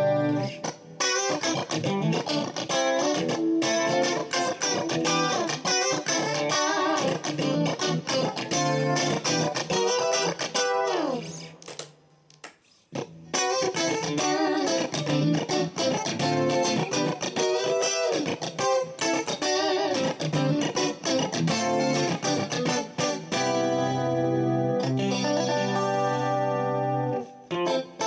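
Ever Play Strat-style electric guitar played on a clean sound: quick single-note runs and chords, a downward slide in pitch about ten seconds in followed by a brief pause, then held, ringing chords near the end.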